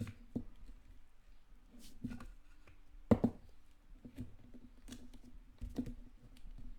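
Handling noise as an 18650 battery is fitted into a metal lightsaber hilt: scattered small clicks and knocks, with one sharper knock about three seconds in.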